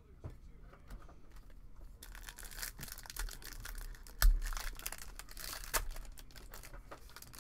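Foil wrapper of a 2022 Topps Series 1 baseball card pack being torn open and crinkled, starting about two seconds in, with one sharp rip about halfway through.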